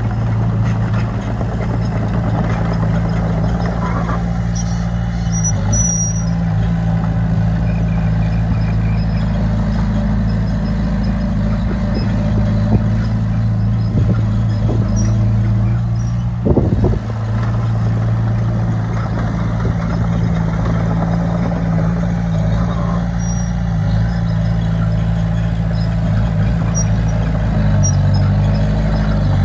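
Heavy construction-machine diesel engine running steadily at a constant note. A short clatter comes about halfway through, and the engine note changes near the end.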